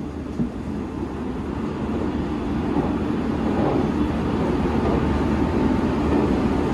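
A train in motion heard from inside the passenger car: a steady low rumble that grows gradually louder.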